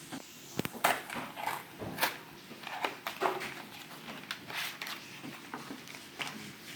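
Rustling and crinkling of Pokémon card packaging and cards being handled, with irregular sharp crackles and clicks.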